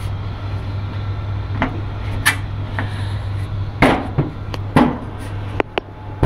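Split air conditioner's outdoor unit running with a steady low hum, its fan motor now on a new capacitor and running properly. Several sharp knocks and taps from handling against the plastic casing, the loudest about four and five seconds in.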